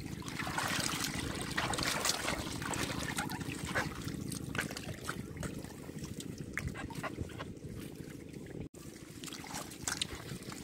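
Shallow pond water splashing and trickling as people wade through it, with short scattered splashes over a steady low rumble.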